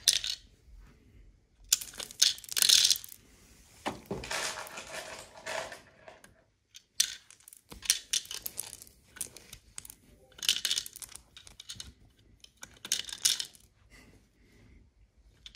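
Small toy pieces clattering as they are dropped into wooden toy train wagons, in several separate short bursts of rattling.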